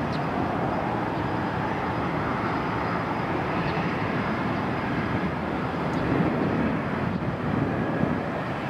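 Jet engines of a Boeing 777-200ER airliner on approach to land, a steady rumbling roar that swells slightly about six seconds in.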